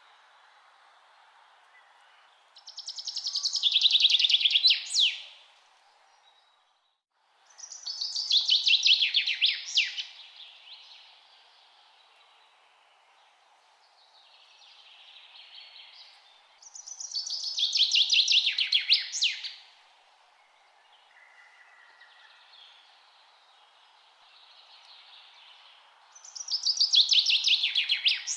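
A songbird singing the same short phrase four times, about every eight seconds: a fast trill that ends in a few quick downward sweeps. Fainter bird calls sound between the phrases over a faint steady outdoor hiss.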